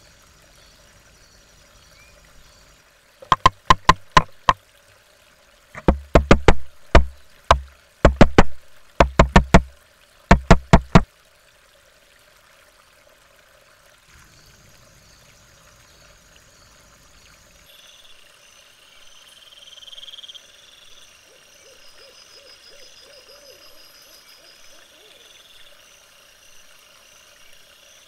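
Great spotted woodpecker pecking at a fallen dead branch: loud, sharp wooden knocks in quick bursts of a few strikes each, several bursts over about eight seconds, then they stop.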